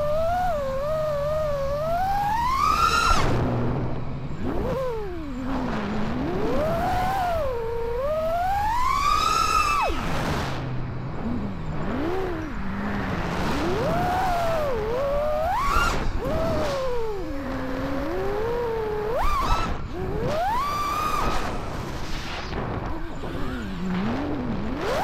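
Brushless motors of a 5-inch FPV freestyle quadcopter (Xing2 2207 1855kv) whining, the pitch sweeping up and down with throttle punches and chops. There is a rushing noise underneath.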